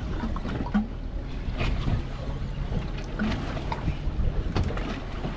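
Wind buffeting the microphone and water moving around a small boat's hull at sea, over a steady low rumble, with scattered short knocks and clicks.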